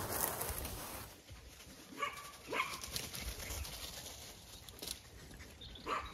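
Rustling in dry leaf litter for about the first second. Then three short animal calls: two close together about two seconds in, and one near the end.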